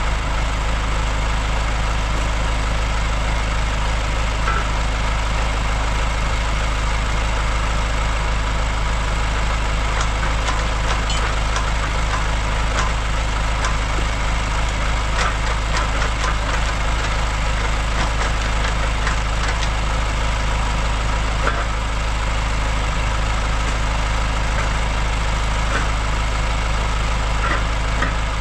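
Heavy farm machine's engine idling steadily, with a few light clicks through the middle.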